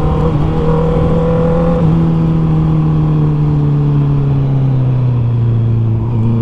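Honda CB650R's 649cc inline-four engine, breathing through an Akrapovic full exhaust system, running at steady revs. Its pitch sags slowly, then begins to rise again near the end.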